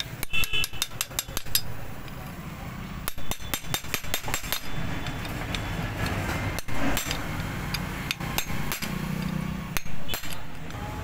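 Hammer striking a steel chisel set against the clutch centre nut of a Hero Passion Pro engine, metal-on-metal blows that tighten the nut. They come as a quick run of about eight strikes, then shorter runs and scattered single blows.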